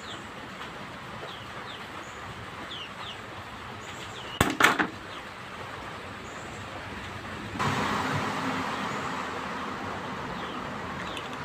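Small birds chirping now and then, a short clatter about four and a half seconds in, then a steady engine-like noise that sets in suddenly at about seven and a half seconds and slowly fades.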